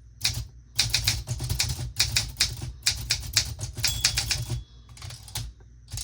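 Typewriter typing: quick uneven runs of key strikes, several a second, broken by short pauses. A brief thin high tone sounds about four seconds in.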